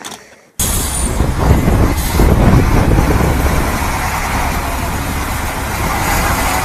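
A motor vehicle's engine running loud with steady rumbling noise. It cuts in abruptly just after half a second in, after a few faint sounds.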